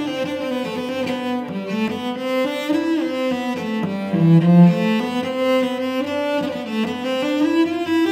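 Solo cello played with the bow, a melodic line that steps downward to its lowest and loudest note about halfway through, then climbs back up.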